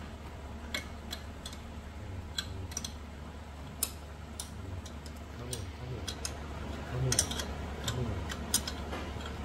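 Irregular metal clicks and clinks of a spanner turning the nut on a threaded-rod gear puller in an outboard lower gearcase, some coming in quick runs, over a steady low hum.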